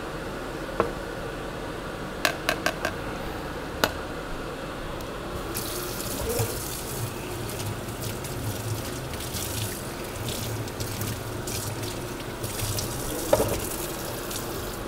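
A few sharp clicks and knocks of kitchenware on the counter, then water running from a kitchen tap and splashing unevenly in the sink from about five seconds in, with one louder knock near the end.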